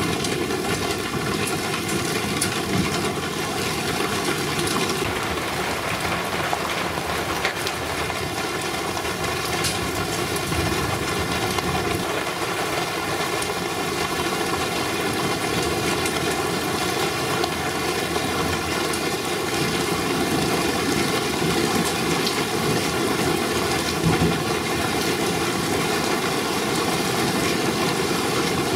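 Heavy rain pouring steadily, a thick even hiss of downpour from a thunderstorm.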